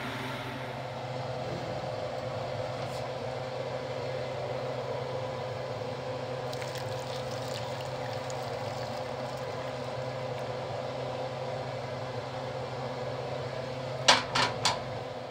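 Beef-broth pan sauce poured from a skillet into a slow cooker over short ribs, faint liquid splashing about midway, over a steady hum. Three sharp knocks come near the end.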